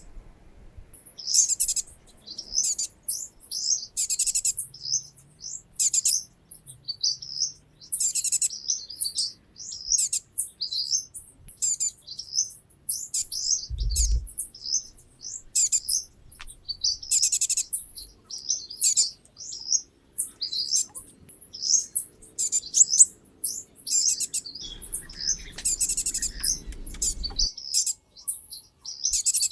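Small birds chirping rapidly and repeatedly, short high-pitched calls several times a second. There is a single low thump about halfway through and a few seconds of low rumbling noise near the end.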